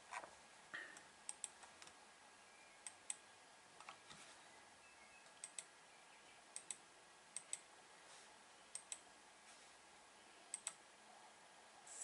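Faint computer mouse clicks against quiet room tone, mostly in quick pairs, a pair every second or so.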